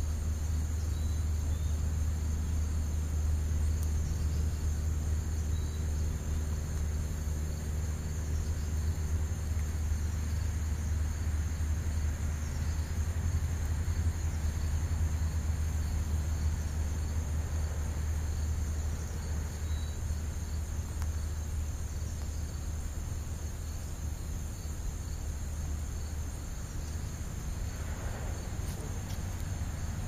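Steady high-pitched chorus of insects over a constant low rumble.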